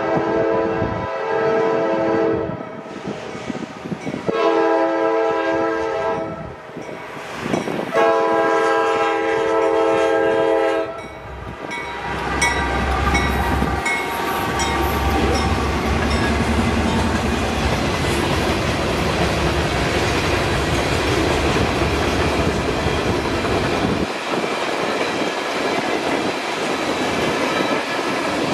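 Norfolk Southern freight train's diesel locomotive sounding its multi-chime air horn in three long blasts over the first eleven seconds. Then the two locomotives pass with a deep engine rumble, followed by covered hopper cars rolling by with a steady wheel-on-rail clatter.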